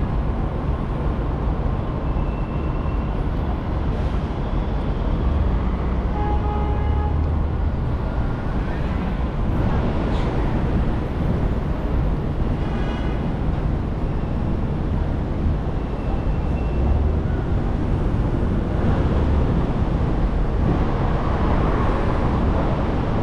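Steady road and traffic noise from a car driving through city streets: a low rumble of engine and tyres. Two short higher-pitched tones stand out, about six and about thirteen seconds in.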